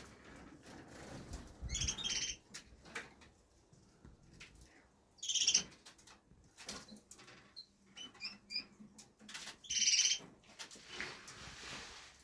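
Caged canaries fluttering and hopping about, with many light flutters and clicks, and three short high chirps about two, five and ten seconds in.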